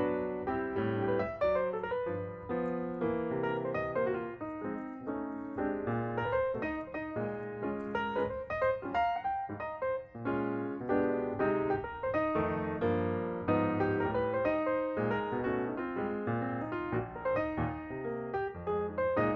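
Background music: a piano piece with many quick notes.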